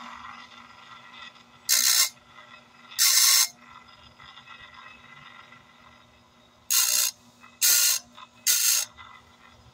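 Chicago Electric circular saw blade sharpener's motor running with a steady hum while its grinding wheel for carbide tips is touched to the saw's teeth five times, each a brief hissing grind about half a second long.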